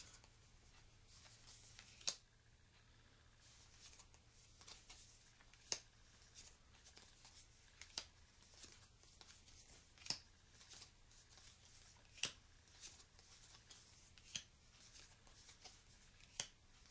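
Stiff, smooth-finished game cards being dealt one at a time onto a wooden table. Each card lands with a crisp snap, seven in all, about two seconds apart, with faint sliding swishes between.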